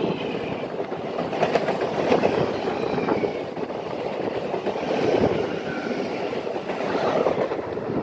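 Pink-liveried EMU local train's coaches running past close by at speed: a steady rumble and rattle of wheels on rail, with repeated knocks over the rail joints and a faint high whine above.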